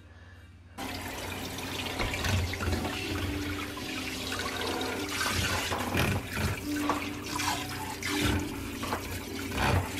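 Kitchen faucet pull-down sprayer spraying water into a stainless steel sink, splashing over a baby in a bath seat; the spray starts suddenly about a second in and runs steadily.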